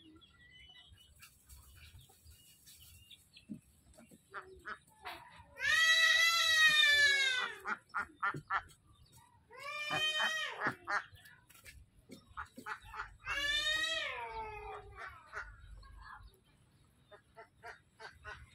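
Domestic fowl calling: three long, drawn-out calls, each dropping in pitch at its end, with scattered short taps and clicks between them.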